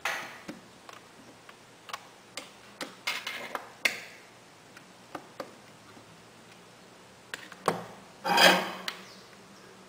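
Small clicks, taps and light scraping of metal tweezers and a small metal hinge nut against a laptop's plastic case, as the nut is worked back into its mount. A brief, louder rustling scrape comes a little past eight seconds in.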